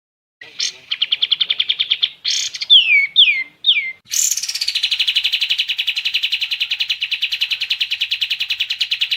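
Kapas tembak songbird singing: a fast rattling trill, then three quick down-slurred whistles about three seconds in, then a long steady fast trill from about four seconds in.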